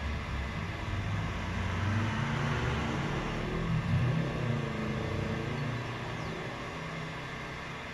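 Electric heat gun running, its fan blowing hot air onto heat-shrink tubing around an ignition coil: a steady whoosh that gets louder in the middle and eases off near the end.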